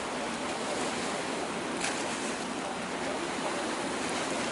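Steady rush of water from a small boat moving through harbour water, mixed with wind on the microphone, with a brief louder swish about two seconds in.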